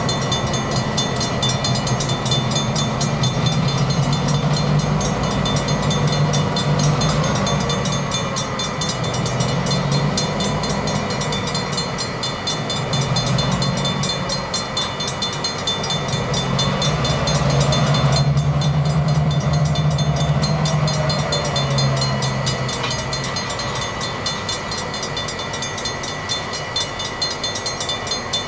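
Safetran mechanical crossing bells ringing with steady, rapid strokes at an active grade crossing. Under them, diesel switching locomotives rumble past, the engine sound swelling and easing as they move off.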